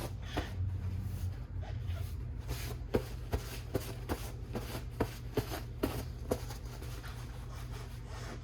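Irregular light clicks and taps of parts and tools being handled during a snowmobile engine teardown. They are thickest for the first six seconds or so and die away near the end, over a steady low hum.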